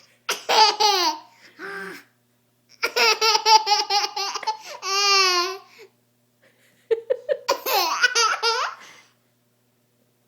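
High-pitched laughter in about three long bouts of rapid ha-ha pulses, with short pauses between them.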